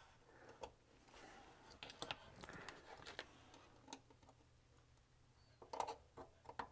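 Near silence with faint, scattered clicks of small metal hand tools, a screwdriver and needle-nose pliers, working at screws on a circuit board inside a radio's metal chassis. A short cluster of slightly louder clicks comes near the end.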